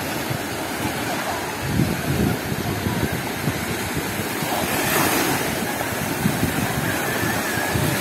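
Small sea waves breaking and washing up a sandy beach, a steady surf, with wind buffeting the microphone.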